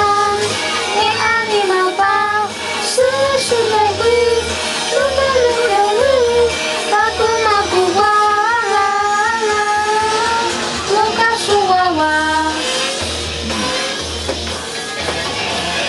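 Karaoke backing music with a beat, and a voice singing a wavering melody over it that stops about twelve seconds in, leaving the accompaniment playing alone.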